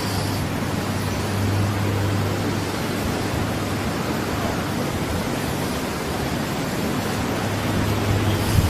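A steady low hum under a loud, even rushing noise, with no clear beginning or end. It is the kind of drone presented as a strange sound in the sky.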